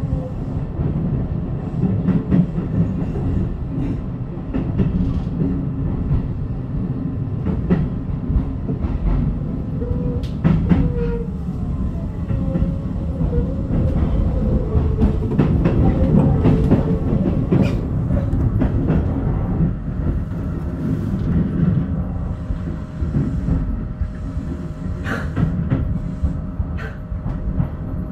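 Electric commuter train of the Keio Zoo Line running, heard from inside the rear cab: a steady low rumble with repeated clicks of the wheels over the rail joints. A faint wavering squeal, likely wheels on the curve, comes in for several seconds midway.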